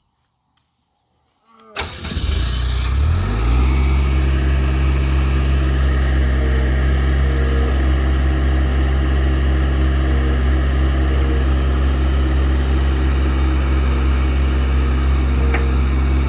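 Bobcat 853H skid steer's diesel engine cranking and firing up about two seconds in, then settling into a steady idle.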